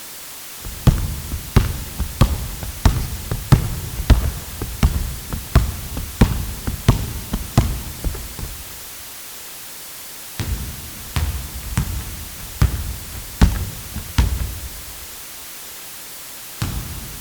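A basketball being dribbled on a hard court, bouncing steadily about one and a half times a second, in two runs of several seconds with a pause of about two seconds between them. A steady hiss lies underneath.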